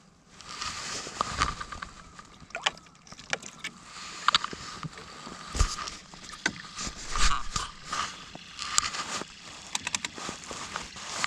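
Handling noise in a small fishing boat: irregular clicks and knocks from rod, reel and hull, with a few louder knocks, over a faint steady hum.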